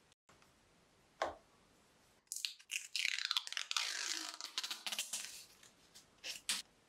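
Green protective plastic film being peeled off a clear plastic sheet: a crackling, crinkling rip lasting about three seconds. Brief handling sounds come about a second in and twice near the end.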